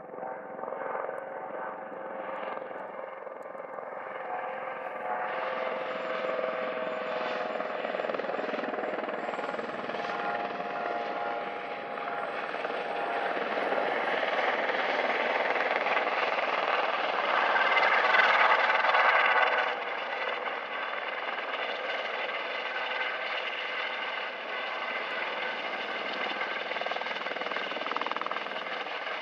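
Airbus Helicopters H130's turboshaft engine and rotors on approach and landing: a steady turbine whine over rotor noise that grows louder, peaks a little past halfway, then falls back abruptly and holds steady as the helicopter sits on the pad with its rotors turning.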